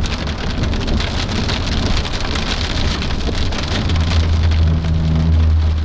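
Heavy rain pelting the roof and windshield of a moving vehicle as a dense, steady patter, over a low hum of engine and road noise that grows louder about four seconds in.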